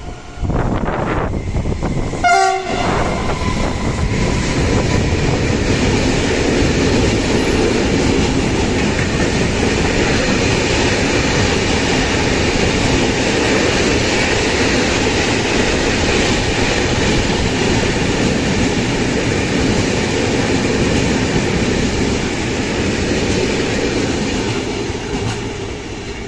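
Freight train behind an electric locomotive passing at speed, with a short horn blast about two seconds in. The steady rumble and clatter of its open box wagons rolling by follows, fading near the end.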